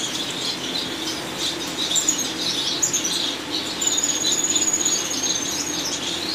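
Many small caged finches chirping and twittering. About four seconds in, one long thin high-pitched note is held for about two seconds.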